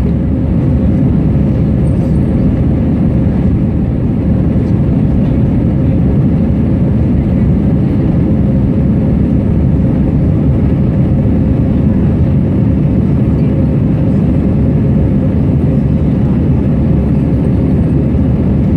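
Steady jet airliner noise heard inside the passenger cabin during the climb after take-off: an even, low-weighted rush of engine and airflow with a faint steady hum.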